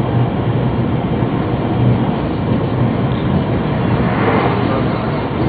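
Yamagata Shinkansen train running at speed, heard from inside the passenger car: a steady rumble of wheels and running gear, made quieter by the snow around the line. About four seconds in there is a brief swell of noise.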